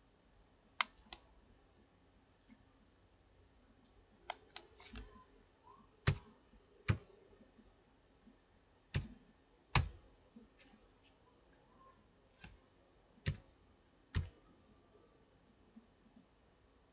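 Sharp, separate clicks from a computer keyboard and mouse, about a dozen in all, many in pairs less than a second apart, with quiet pauses between.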